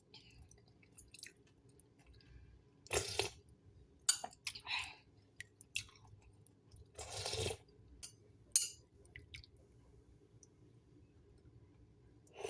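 A person eating close to the microphone: irregular chewing with scattered sharp clicks and a few short, louder bursts of noise.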